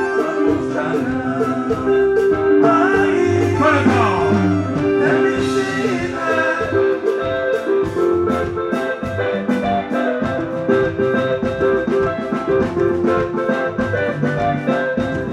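Live soukous band music: bright, ringing lead lines over a fast, steady drum beat, with a brief gliding sweep about three seconds in.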